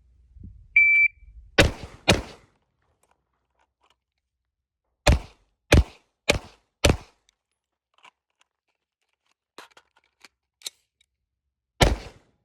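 An electronic shot timer beeps once. Then two rifle shots come about half a second apart. After a pause of about three seconds, four pistol shots follow in quick succession. Faint metallic clicks of a rifle reload come next, and two more shots sound near the end.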